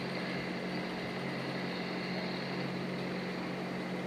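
A 200cc motorcycle engine idling steadily.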